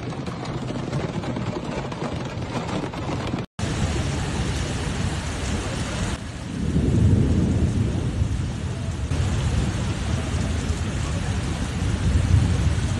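Floodwater rushing along a street in heavy rain: a loud, steady rushing noise with a deep rumble, cut by a brief dropout about three and a half seconds in.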